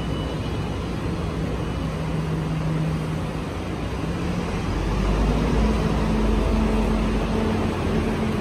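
Steady low rumble of vehicle traffic, with a humming engine tone that shifts a little higher and grows louder about halfway through.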